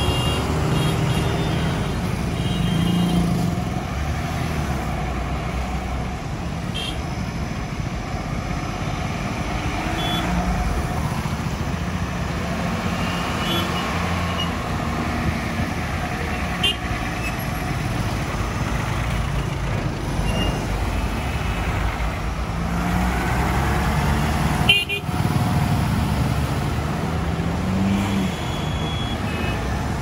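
Road traffic from a slow convoy of heavy trucks: diesel truck engines running with motorcycles and cars passing close by, several short horn toots, and one sharp knock late on.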